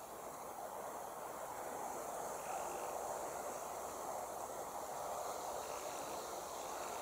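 Steady, even rushing background noise outdoors, with no distinct events and no sound from the resting squirrel.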